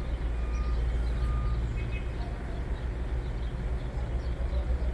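Street ambience: a steady low rumble of vehicle traffic or a running engine nearby, with a few faint short high tones above it.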